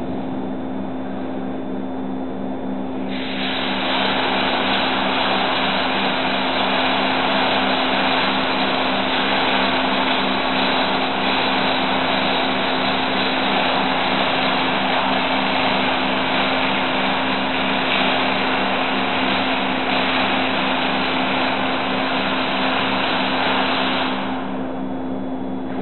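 Electric arc welding: a steady crackling hiss that starts about three seconds in and stops shortly before the end, over a constant low machine hum.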